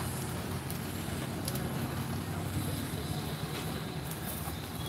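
Steady low outdoor background rumble with a few faint knocks.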